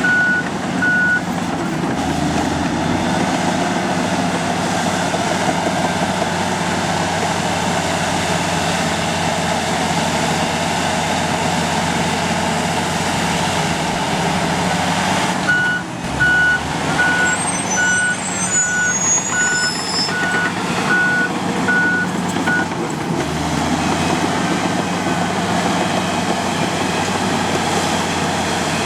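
Komatsu D85 bulldozer's diesel engine running steadily as the machine works. Its reversing alarm beeps in an even rhythm for the first second and again for about seven seconds around the middle.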